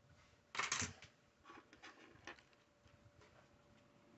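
Loose plastic building bricks being sorted by hand on a table: one short clatter about half a second in, then a few light, scattered clicks as single pieces are picked up and set down.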